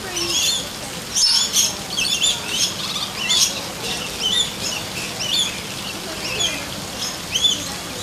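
Many aviary birds chirping: short, high chirps and whistled notes that overlap in quick succession.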